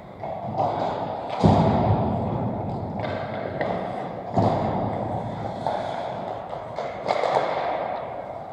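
Pickup ice hockey on an indoor rink: skate blades scraping the ice and sticks knocking, with one heavy thud about a second and a half in and sharper knocks about four and a half and seven seconds in.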